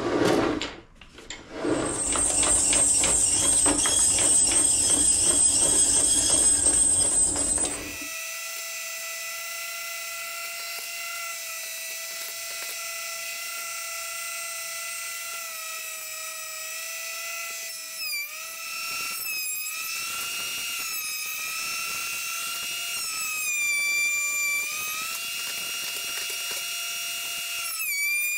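Benchtop electric thickness planer at work on old hardwood fence palings. There is a loud rushing stretch of cutting noise for about six seconds, then a steady high motor whine that sags briefly several times as boards feed through. By the owner's verdict the blades need sharpening.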